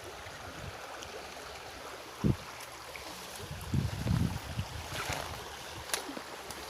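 Shallow stream water running steadily, with a single low thump about two seconds in and a stretch of irregular low rumbling near the middle.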